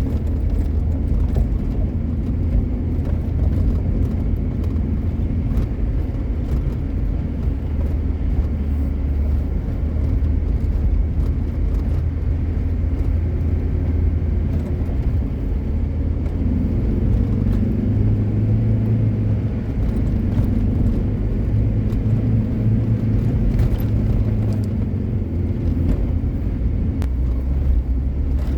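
Car engine running while driving, with a steady low rumble. The engine note rises about halfway through and settles back down near the end.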